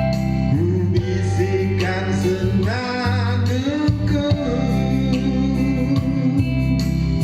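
Music: a slow Indonesian pop ballad, with a melody line holding long notes with vibrato over guitar and bass backing.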